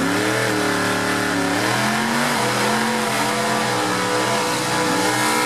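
Drag racing car's engine running loud and steady, its revs wavering up and down.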